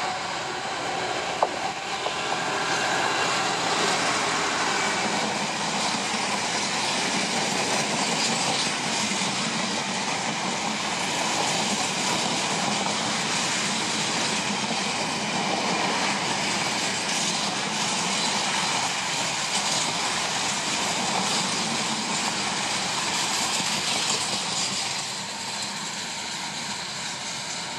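A freight train hauled by a Class 66 diesel locomotive passing close by, its engine heard in the first few seconds, then a long run of box wagons, their wheels going over the rails in a steady, even noise with a sharp click about a second in. The noise eases off near the end as the last wagons go by.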